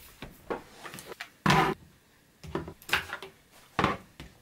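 Travel gadgets (an external hard drive, a charging bank, a small case) being set down one after another on a desk: a handful of short knocks and clatters, the loudest about one and a half seconds in.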